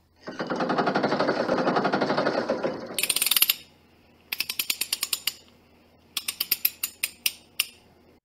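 Mechanical-style sound effect for an animated logo intro: a loud rattling buzz of very rapid strikes lasting about two and a half seconds, a short burst of sharper clicks, then two runs of rapid clicks at about ten a second, ending in a single click.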